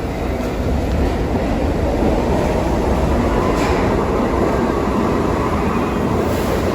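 An R68 subway train running along the track: a steady rumble that grows a little louder about a second in, with a faint steady tone over it and two short high-pitched noises in the second half.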